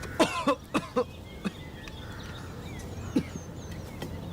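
A person's short throaty vocal sounds, like coughs or throat clearing: a quick run of them in the first second, then two more single ones. Faint bird chirps come in the background in the middle of the stretch.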